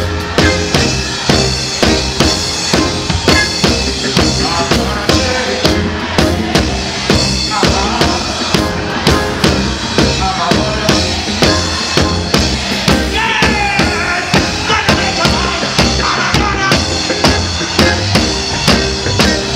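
Live reggae band playing loud, with a steady drum-kit beat of kick and snare under bass and electric guitar.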